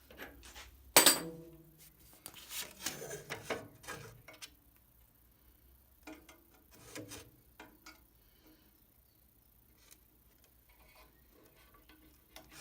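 Metal parts and tools being handled while a bolted table extension is loosened and adjusted: a sharp metallic clank with a short ring about a second in, then scattered knocks and scraping, fading to light handling noises.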